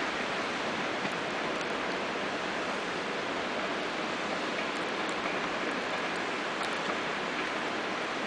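Steady, even hiss of background noise with a few faint ticks and no distinct source.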